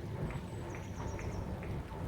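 Low, steady rumble of a train at the station, with faint light ticks about twice a second and a faint high wavering squeal near the middle.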